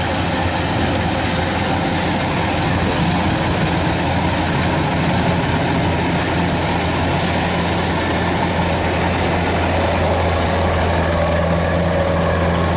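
Kubota DC-105X combine harvester's diesel engine running steadily, a constant low hum with a broad hiss over it. A higher steady whine joins about ten seconds in.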